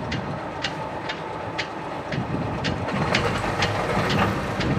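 Mercedes OM636 marine diesel engine being cranked on the starter after the glow plugs are pre-heated, with a rhythmic beat about twice a second; it gets louder about three seconds in as the engine fires. This engine is slow to start.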